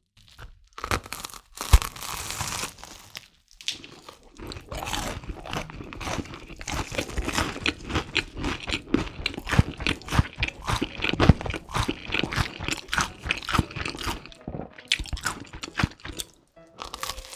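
Close-miked biting and chewing of a crispy, Flamin Hot Cheetos–crusted pork cutlet: loud crunches in quick succession with a brief pause a few seconds in, stopping just before the end.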